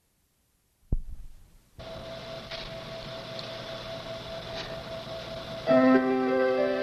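Start of a recorded song intro: a brief thump about a second in, then a steady hiss with a faint held tone, and keyboard chords with sustained notes coming in near the end.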